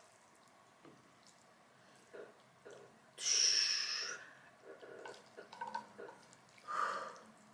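A loud slurp of spicy Jin Ramyun noodles about three seconds in, then soft chewing and mouth clicks, and a shorter slurp near the end.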